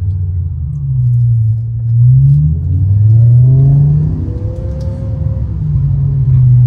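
BMW M5 E60's V10 engine heard from inside the cabin while driving: it rises in pitch twice as the car accelerates, dropping back after each rise, then settles to a steady cruise.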